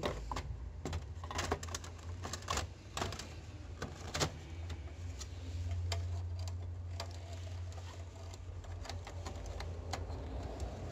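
Plastic clicks and knocks of a compatible CE285A-type toner cartridge being slid into an open HP LaserJet P1102 laser printer and seated by hand, thickest in the first half. A low steady hum runs underneath.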